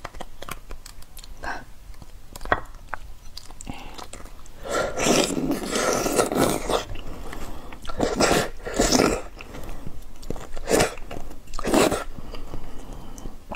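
Close-up wet mouth sounds of sucking braised beef bone marrow out of the bone. A few small clicks come first, then several loud slurps; the longest, about five seconds in, lasts about two seconds.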